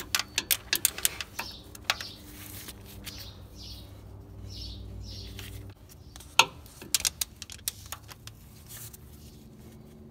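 Hand ratchet wrench clicking in quick bursts as the bolts of a replacement brake vacuum pump are tightened, with a few short squeaks in between. A single sharp, louder click comes about six and a half seconds in, followed by a few more clicks.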